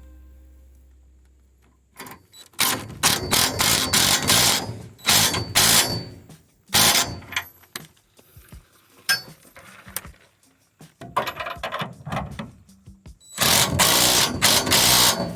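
Socket ratchet clicking in repeated bursts as the receiver hitch's mounting bolts are run down and tightened, the loudest and longest burst near the end. A fading musical tone dies away in the first two seconds.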